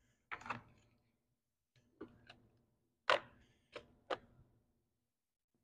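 Metal hand tools clinking and knocking as someone rummages through them for a 10 mm socket: about six separate sharp clinks with a short ring, the loudest about three seconds in.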